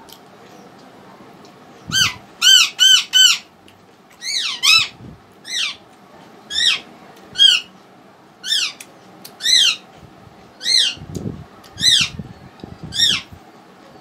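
A bird calling repeatedly: about fifteen short, sharp calls, each sweeping up then down in pitch, starting about two seconds in and coming singly or in quick runs. A few soft low knocks sound near the end.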